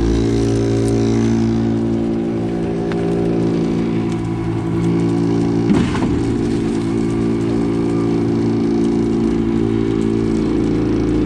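Concrete pump truck's diesel engine running steadily at a constant speed, with one sharp knock about six seconds in.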